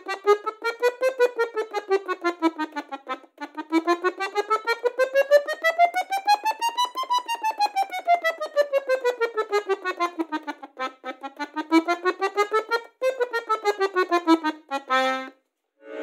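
Bayan (Russian button accordion), right-hand keyboard only, playing a chromatic scale exercise: quick, even single notes running up and down in pitch several times, with an accent on every fourth note. It is a drill for the weaker third, fourth and fifth fingers.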